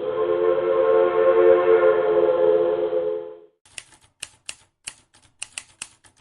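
Alco S4 locomotive's air horn sounding one long, steady chord that cuts off about three and a half seconds in. It is followed by a run of about a dozen sharp, irregular clicks.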